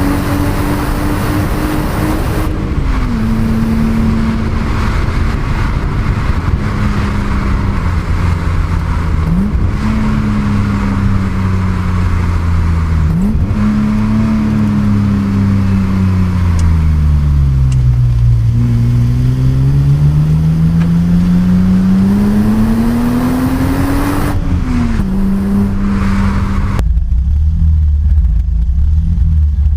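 Stock 1988 BMW 325i E30's 2.5-litre straight-six being driven hard through the gears. The engine pitch climbs and drops sharply with an upshift about three seconds in, jumps up twice as if on downshifts, sags as the car slows, then climbs steadily under acceleration to another sharp shift drop. Near the end it settles to a low, quieter drone off the throttle.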